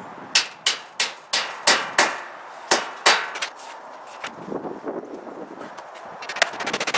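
Hammer driving nails through trim into the eave framing: about eight sharp strikes in the first three seconds, each ringing briefly, then lighter handling noises and a fast run of small clicks near the end.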